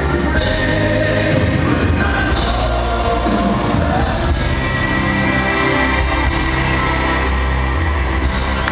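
Live band music with a male lead singer, loud and amplified over an arena sound system.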